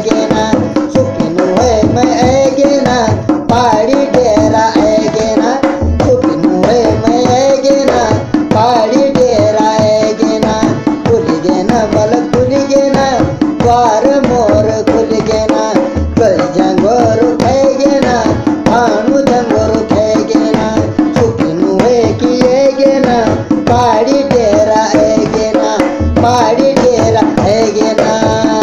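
Garhwali folk song music: dholak drumming in a steady beat under a wavering melody line, an instrumental passage with no words sung.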